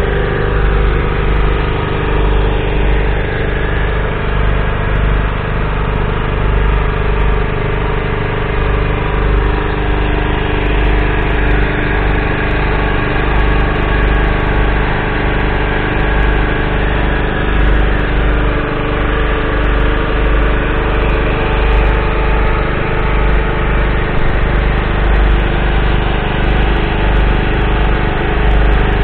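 Valtra T254's 7.4-litre six-cylinder diesel engine idling steadily.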